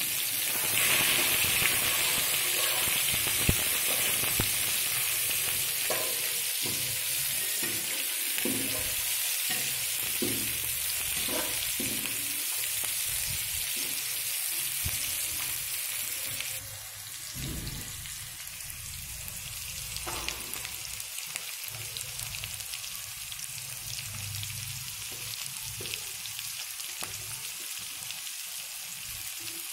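Onions sizzling in hot oil in a wok, with a slotted metal spoon stirring and scraping in scattered clicks. The sizzle drops to a quieter level a little past halfway.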